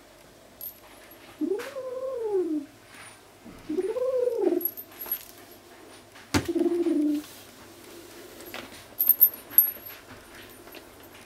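American Curl kitten making owl-like hooting growls over its toy, a defensive warning against a threat. There are two drawn-out calls that rise and fall in pitch, then a sharp click about six seconds in and a shorter, flatter low call. A few light ticks come near the end.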